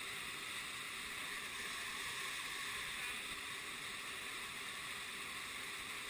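Fast-flowing mountain stream water rushing steadily through a rocky gorge, an even rush with no breaks.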